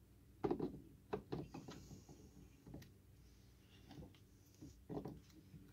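Scattered light clicks and knocks of a scope's metal rail mount being shifted along a Picatinny rail and seating in its slots while its position is set.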